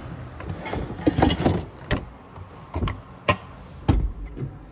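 A few separate sharp clicks and knocks of things being handled, with a heavier, deeper thump near the end.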